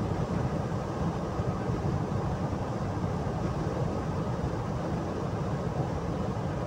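Steady low rumble of tyre, road and engine noise inside a car's cabin while it drives along a highway.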